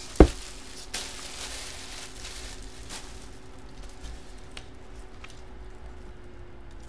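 A trading card box being handled as it is opened: one sharp knock just after the start, then faint rustling and a few small ticks over a faint steady hum.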